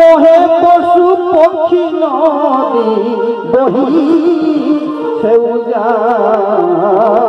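Live Jhumur folk music: a melody with a wavering vibrato over a beat of drum strokes.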